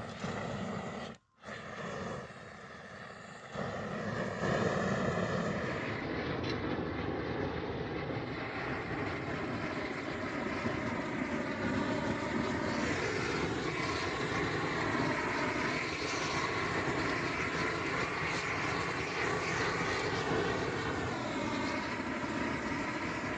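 A steady motor drone whose pitch wavers slightly, cutting out briefly about a second in.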